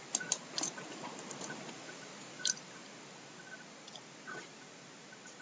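A handful of faint, short computer mouse clicks at irregular intervals over a low steady hiss.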